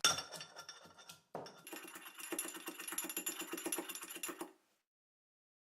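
Ginger, black peppercorns, cinnamon and cloves being pounded with a pestle in a mortar. A few separate knocks come first, then rapid, even pounding for about three seconds, which stops abruptly.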